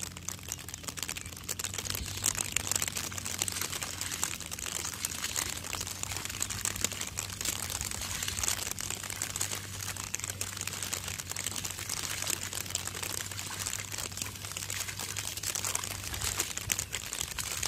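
Continuous wet crackling of paddy mud and water being worked by hand and foot, over a steady low hum.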